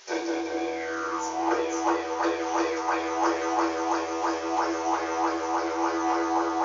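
Didgeridoo playing a steady drone with a regular pulsing rhythm of about three beats a second, imitating a kangaroo hopping.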